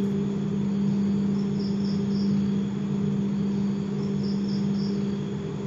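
Crickets chirping, three short pulses at a time about every two and a half seconds, over a steady low hum.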